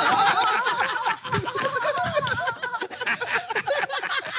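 Audience laughing, many voices at once, loudest in the first second and then settling.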